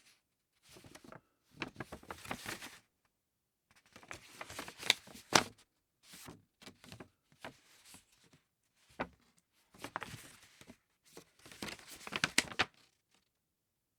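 Thick paper being handled: bursts of rustling and crinkling with sharp crackles, separated by short pauses, loudest about five seconds in and again near the end.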